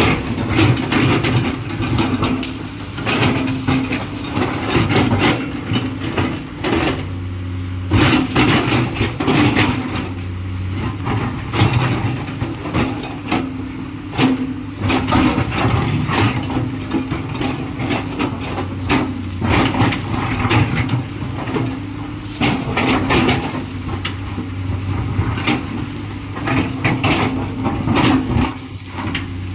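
Komatsu PC210LC excavator's diesel engine running steadily, with frequent irregular clanks, knocks and scrapes of the machine at work.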